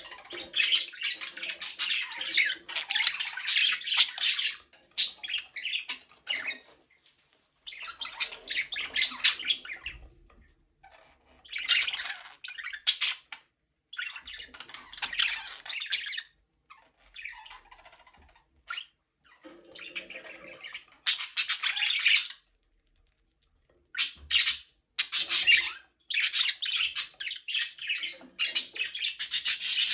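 Budgerigars chirping and chattering in bouts of rapid warbling chirps, a few seconds each, broken by short pauses.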